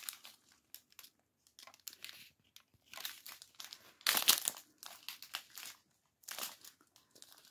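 Sealed clear plastic bags of diamond-painting resin drills crinkling as they are handled, in irregular bursts, the loudest about four seconds in.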